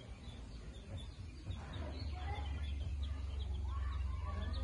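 Chicks peeping: many short, high cheeps in quick succession, over a steady low rumble that comes in about a second and a half in.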